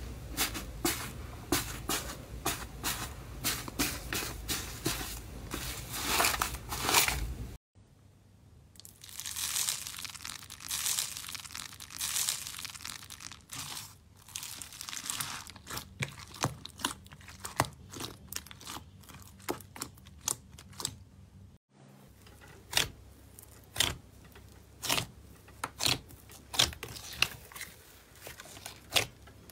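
Hands pressing and squeezing slime, giving a run of crackling, popping clicks, one or two a second. The sound cuts off suddenly twice as the slime changes: first a blue slime with a cracked crust, then a green slime packed with foam beads that crunches under the palm, then clear slime in a tray.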